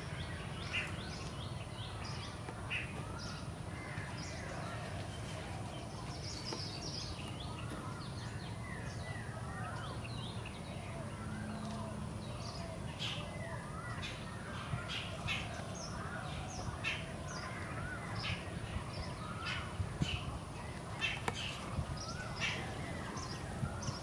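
Many birds calling and chirping over a steady low rumble, the short sharp calls coming more often in the second half.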